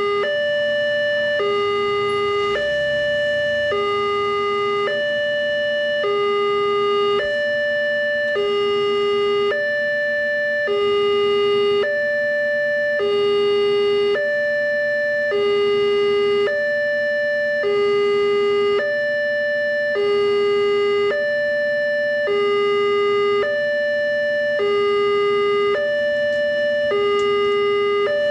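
Railway level crossing warning alarm sounding continuously: a two-tone electronic signal, a higher and a lower tone alternating about every three-quarters of a second. It signals that a train is coming and the crossing is closed.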